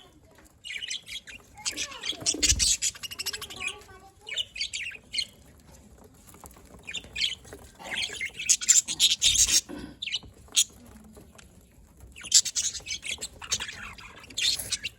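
Pet budgerigars chattering and chirping in rapid, high-pitched runs, coming in three bouts with short pauses between them, and two brief low thumps.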